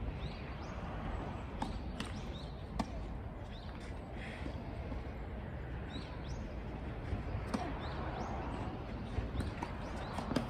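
A ball being struck and bouncing on an outdoor court during a rally: sharp, separate knocks a second or more apart, with birds chirping faintly.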